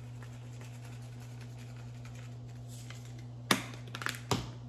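A plastic spice shaker's flip-top lid snapping shut with a sharp click, then a few light knocks as the shaker is set down on a granite countertop. A steady low hum runs underneath.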